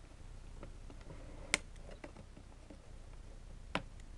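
Wire snips cutting through thin hookup wires: two sharp clicks, the first about a second and a half in and the louder, the second near the end, with a few faint ticks between.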